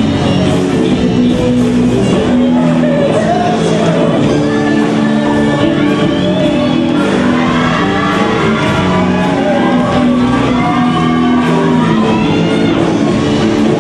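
Live band playing rock music, with guitar and a singing voice over held chords.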